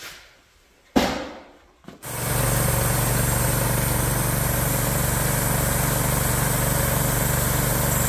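A heavy thump about a second in. Then, from about two seconds in, a Predator 212cc single-cylinder engine driving a Central Pneumatic air compressor runs steadily and evenly, now that its no-start fault is fixed.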